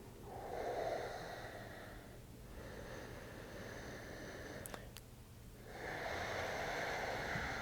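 Slow, deep breathing close to the microphone: a soft rush of air near the start, a fainter stretch, then a longer breath from about six seconds in. Two faint clicks just before five seconds.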